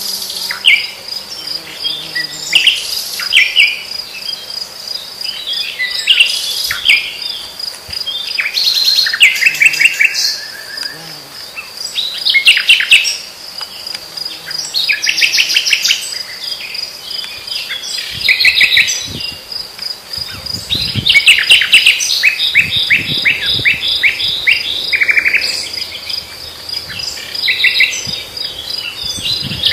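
A common nightingale singing in varied phrases with short pauses between them, many of the phrases rapid runs of repeated notes, over the steady, pulsing, high trill of crickets.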